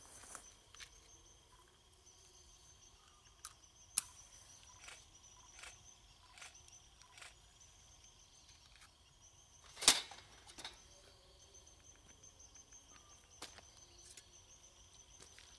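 Scattered light metal clicks and knocks from hands working at a trackside railway point indicator and its lamp, with one sharp, louder knock about ten seconds in and another about four seconds in. A steady faint high-pitched trill runs underneath.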